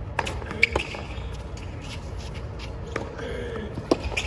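Sharp knocks of a tennis ball being struck and bouncing on a hard court, spaced irregularly, with the loudest pair a little under a second in and another near the end. A steady crowd murmur runs underneath.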